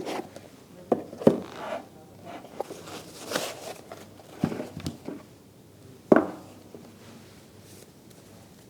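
Handling noises from a plastic EV charging adapter being picked up and turned over: scattered knocks and clicks with a brief rustle, the loudest knock about six seconds in.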